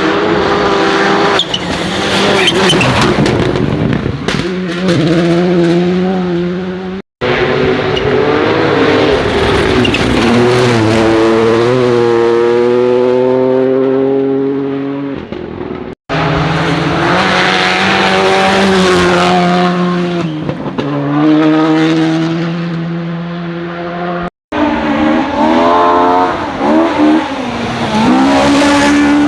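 Rally cars driven flat out, engines revving hard with the pitch climbing and dropping through gear changes and lifts. The sound comes as four short passes cut together, each ending abruptly in a brief gap.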